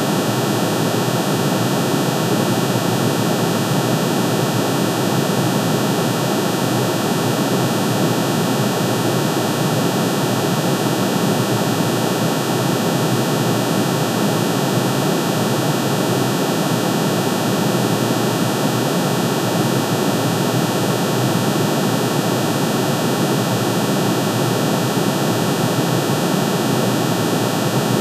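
Synthesized tone cluster: many sine waves summed together, one for each line of aluminium's atomic spectrum shifted into the audible range. It holds steady and unchanging, a dense hiss-like drone with no sound below a low cutoff.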